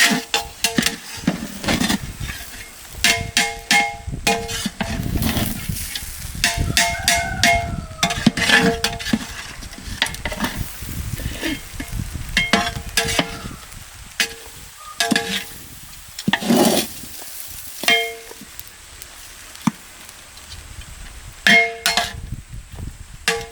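A metal ladle scraping and knocking against a large metal pot of cooked biryani, the pot ringing briefly after many of the knocks as the rice is stirred and scooped.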